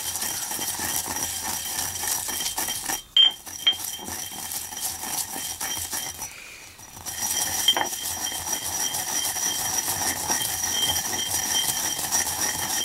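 Pestle grinding eggshells in a stone mortar: steady gritty scraping and crunching, with ringing clinks where the pestle knocks the bowl, the loudest about three seconds in. It breaks off briefly about three seconds in and goes quieter for a second around six seconds in.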